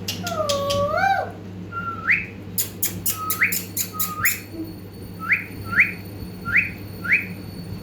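A pet parrot whistling. First comes one warbling call, then a string of about eight short whistle notes, each sweeping quickly upward, with a burst of sharp clicks in the middle.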